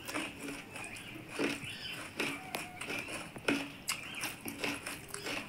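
Eating with the hands: fingers mixing rice and curry against steel plates, with chewing and lip smacks heard as scattered short clicks.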